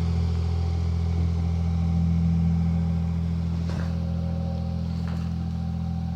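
Canal boat engine running with a steady low hum as the boat passes, loudest a couple of seconds in and easing off slightly after.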